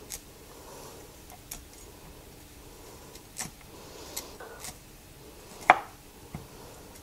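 Chef's knife cutting broccoli florets from the crown on a wooden cutting board: a handful of separate knife strokes and taps on the board, the loudest near the end.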